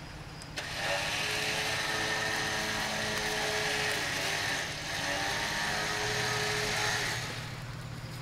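Badlands 12,000 lb electric winch running under load, whining steadily as it reels in synthetic rope and pulls the truck through the creek. It starts suddenly within the first second, dips briefly about halfway, picks up again and stops near the end.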